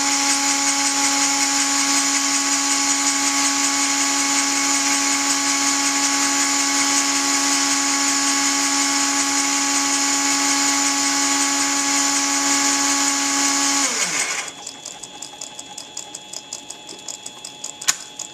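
A belt-driven tool post grinder, its Dremel-type rotary tool spinning a small grinding point in the mini lathe's chuck jaws, runs at speed with a steady whine and a high grinding hiss. About 14 seconds in the running stops and the whine falls away quickly. A quieter fast ticking and one sharp click follow near the end.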